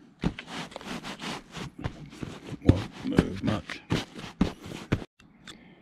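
A hand patting and rubbing a fabric boot bag strapped onto a car's boot lid: irregular rustles, scrapes and soft knocks that stop about five seconds in.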